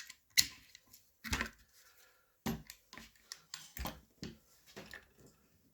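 Metal parts of an M17 G3 receiver being handled and pushed together as its pins are put back in: a handful of sharp clicks and knocks, four louder ones spread over the first four seconds, with lighter taps between.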